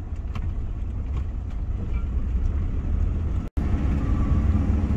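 Car driving along a paved road, heard from inside the cabin: a steady low rumble of engine and tyres, cutting out for an instant about three and a half seconds in.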